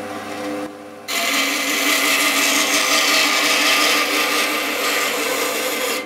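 JIB BAS 312 band saw running with a steady motor hum. About a second in, the blade starts cutting across a small wooden board and a loud, even sawing hiss covers the hum until it stops abruptly at the end.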